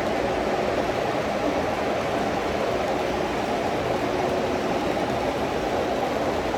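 O scale model trains running on the layout: a steady, even rumble and hiss with no breaks.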